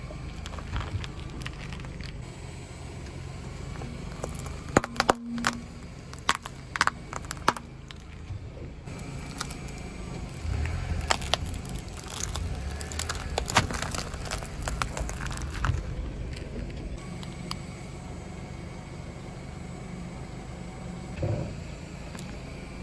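A car tyre rolling slowly over small objects, including a row of matchboxes, crushing them with sharp cracks and crunches in two clusters, over the car's low steady rumble.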